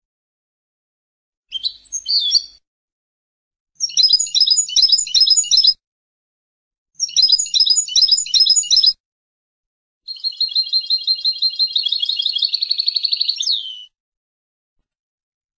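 European goldfinch singing in four phrases with silence between them: a short twittering phrase, two bursts of fast repeated notes, then a long, even trill of about four seconds that ends in a quick slurred note.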